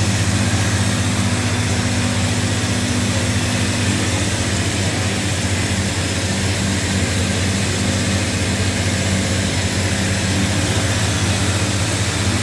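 A window envelope patching machine running steadily: a constant mechanical hum and whir that does not change.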